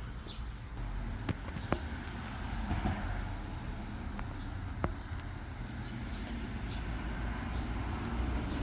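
Steady low rumble, like a vehicle or road traffic, with a few sharp light clicks: two in quick succession about a second in and one near the middle.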